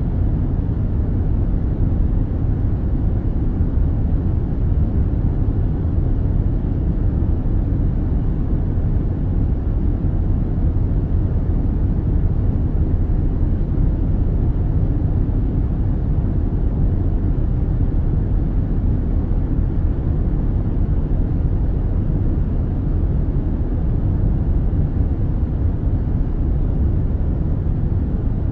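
Steady low rumble of an airplane's cabin noise, the engines and airflow heard from inside the cabin.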